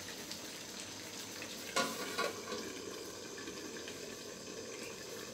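Prawns and glass noodles sizzling in a wok over a gas flame, with two sharp metallic clanks about two seconds in as the aluminium lid goes back on the pan.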